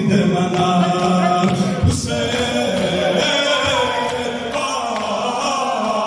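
A group of men chanting a Muharram noha (mourning lament) together, their voices in unison and echoing in a large hall. There is a sharp thump about two seconds in.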